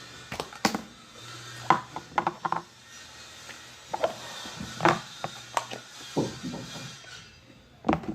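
Mixed pink and blue store-bought slime being squished and played with by hand, giving irregular sticky clicks and pops.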